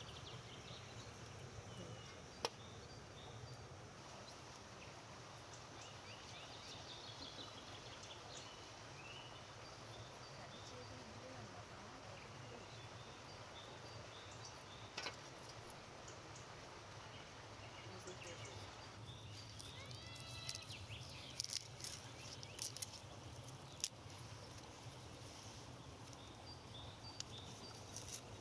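Faint outdoor ambience with scattered bird chirps and a few sharp clicks, several of them close together about two-thirds of the way through.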